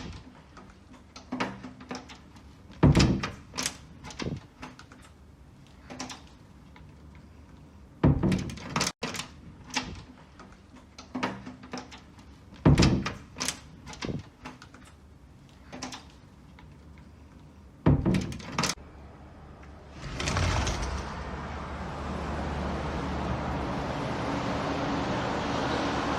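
A series of sharp knocks and thuds at irregular intervals, some in quick pairs. About twenty seconds in, a steady rushing noise starts and slowly grows louder.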